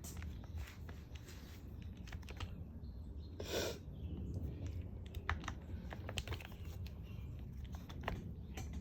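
Small, irregular clicks and taps as an electric motor with its pinion gear is handled and set into an RC crawler's motor mount, parts knocking lightly together, over a low steady hum. A short breathy hiss comes about three and a half seconds in.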